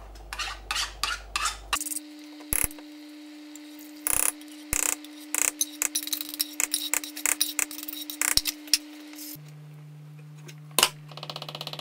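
Kitchen utensil sounds: a series of short knocks, clicks and scrapes of a spoon and containers against a cooking pot while coconut milk and lentils go into the soup, over a steady low hum. The hum changes abruptly twice, and a quick run of ticks comes near the end.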